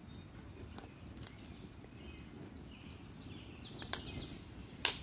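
Swedish torch log burning in a fire ring: a low, steady flutter of flames with scattered sharp crackles and pops from the burning wood, the loudest pop near the end.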